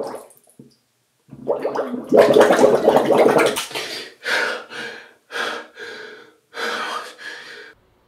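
A person making strained throat and voice sounds in bursts: one long stretch, then three shorter ones.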